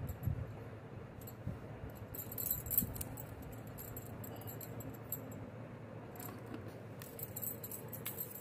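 Bangles jingling on the wrists as the hands work dry sattu filling in a steel bowl, with a few soft knocks near the start; the jingling comes in two spells, about two seconds in and again near the end.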